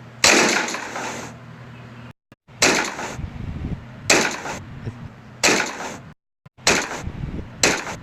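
A string of sharp door-closing impacts, each dying away quickly, about six in all. They come as separate edited clips, with a couple of sudden dead-silent gaps between them.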